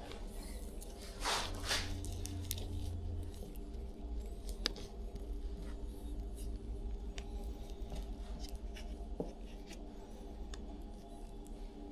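Small handling sounds at a workbench: two short rustling swishes about a second and a half in, then scattered light clicks and ticks, over a steady low hum.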